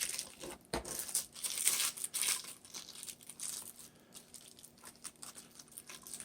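Protective plastic wrapping crinkling and rustling as it is pulled off lamp parts, busiest in the first couple of seconds and thinning to scattered crackles. A single knock sounds just under a second in.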